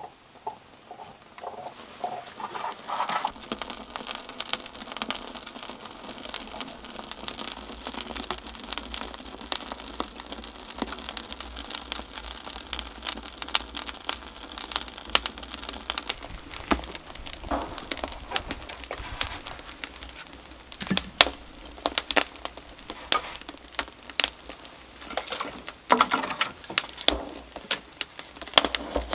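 Split-kindling wood fire catching inside a clay earthen oven, crackling with many sharp snaps and pops. It gets louder and busier a few seconds in as the flames take hold.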